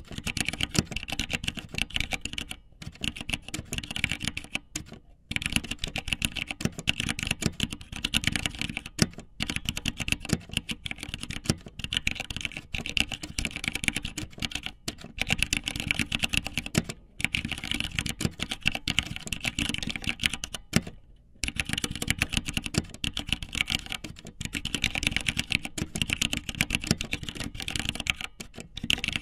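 Dense, rapid clicking in long runs broken by short pauses every few seconds.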